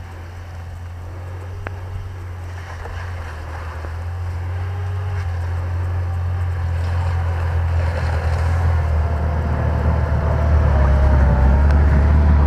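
UAZ Patriot SUV's engine running as it drives up a snowy forest track toward the microphone, growing steadily louder as it comes close, with a wavering engine note over a low rumble.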